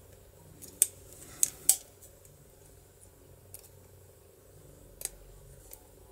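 Sharp metallic clicks of a plier-type hand tool being worked around a DOM IX lock cylinder. Three clicks come in the first two seconds, and a few fainter ones follow later.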